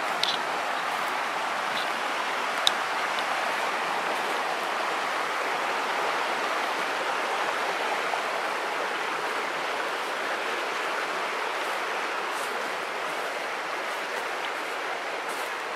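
Mountain stream rushing steadily over a rocky bed, a constant even roar of water. A few faint clicks, with one sharper one about three seconds in.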